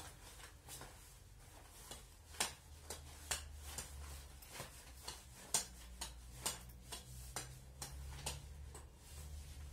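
Light taps about once a second as a rolled sock is bounced up again and again off a hand-held object.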